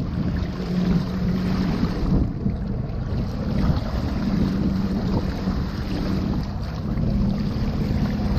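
Wind buffeting the microphone over water splashing against the boat's side, as a large striped bass is held in the water and revived before release. A low hum from the idling boat engine comes and goes underneath.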